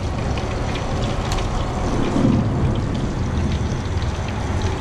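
Fish pieces deep-frying in a pot of hot oil on a camp stove: a steady sizzle with many small crackles and pops, over a low steady rumble.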